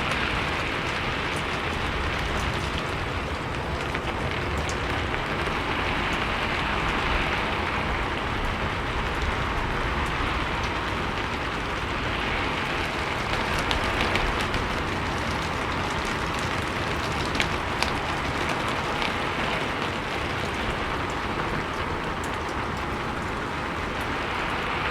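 Steady rain falling on a rooftop, a dense even patter with scattered sharper drip clicks.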